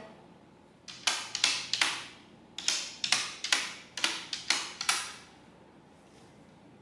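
A child typing on a compact Logitech K480 Bluetooth keyboard: about fifteen irregular key clicks over four seconds, stopping about five seconds in.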